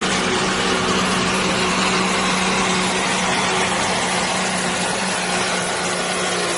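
Semi truck's diesel engine running loud and steady under full load as it pulls a weighted sled on a dirt track, its pitch held level.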